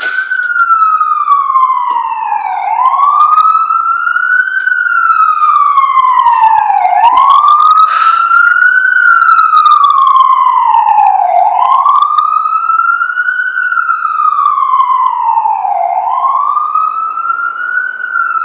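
Emergency vehicle siren in a loud wail, its pitch rising quickly and falling slowly about every four seconds.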